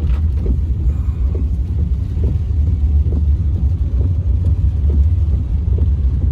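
Steady low rumble of a car moving slowly, engine and tyres heard from inside the cabin, with faint soft knocks about once a second.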